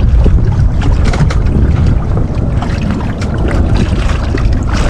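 Wind buffeting the microphone over the steady low rumble of water around a small boat, with scattered light clicks.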